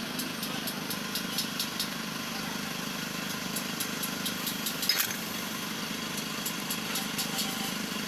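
An engine running steadily in the background, with scattered light metallic clicks and one sharper clink about five seconds in as the oily cast parts of a power steering gear box are handled and pulled apart.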